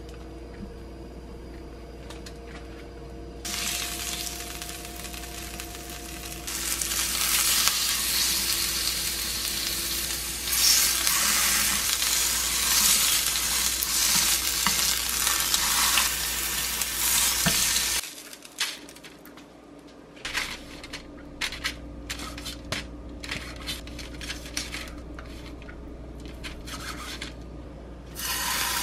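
Pork tenderloin sizzling in hot oil in a nonstick frying pan, the sizzle starting loudly a few seconds in. About 18 seconds in it cuts off and gives way to a string of light clicks and taps of utensils against the pan.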